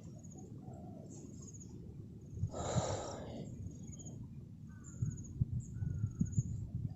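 A short, breathy puff of air about two and a half seconds in, over faint high insect trills, followed by scattered low rustles and knocks in the second half.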